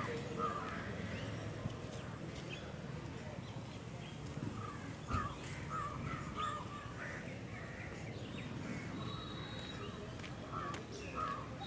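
Birds calling: short harsh calls repeated in several clusters over a low steady background rumble, with a single brief bump about five seconds in.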